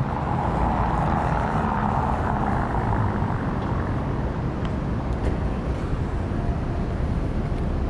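City street traffic noise: a steady low rumble, with a vehicle swelling past in the first few seconds and fading, and a few faint ticks later on.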